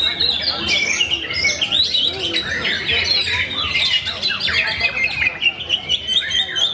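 Oriental magpie-robin (kacer) singing a continuous, varied song of whistles and fast chattering notes, overlapped by other caged songbirds singing in competition.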